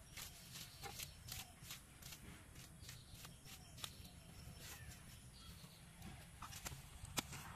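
Irregular short scrapes and clicks of a hoe chopping and scraping weeds off damp ground, roughly one or two strokes a second, over a low rumble.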